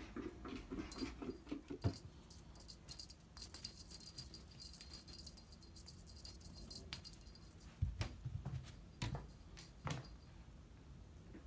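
A cat moving around while it plays fetch with a cat teaser toy. Light clicking and jingling comes from about three to seven seconds in. Three dull thuds follow, about a second apart, which fit the cat landing on the floor.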